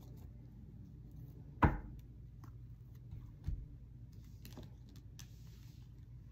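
Tarot cards handled and laid out by hand on a table: one sharp knock about a second and a half in, a lighter knock around three and a half seconds, and faint card clicks and slides.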